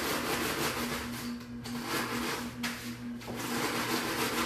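Wooden rolling pin rolled back and forth over a plastic bag of cookies, crushing them into crumbs with a repeated rasping crunch that pauses briefly a couple of times. A steady low hum runs underneath.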